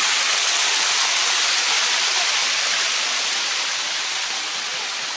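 Waterfall cascading, a steady loud rush of falling water that grows a little quieter in the second half.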